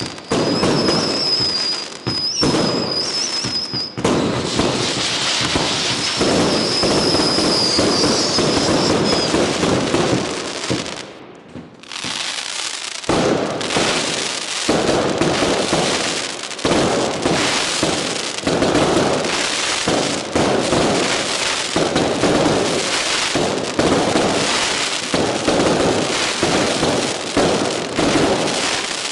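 Consumer firework cakes and candles firing in quick succession, rapid cracks and bursts, with a high whistling firework effect over the first few seconds and again a little later. After a brief lull near the middle, the barrage resumes as dense, continuous crackling bursts.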